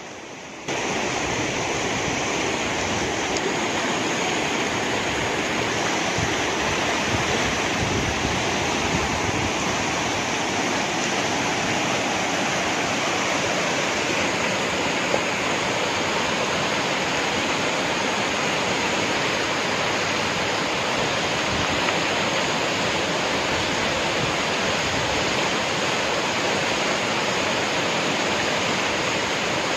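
Muddy white water gushing out of a rock-cut tunnel outlet and churning through rapids in a steady rush, louder from about a second in.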